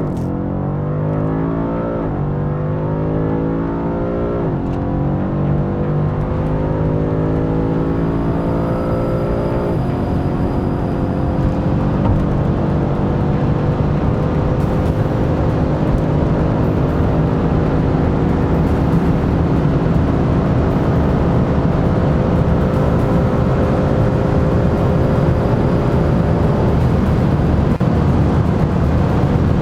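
BMW M5 CS's twin-turbo V8 accelerating hard at full throttle. Its pitch climbs through each gear, with quick upshifts about 2, 4½ and 10 seconds in, then rises slowly in a long pull to high speed.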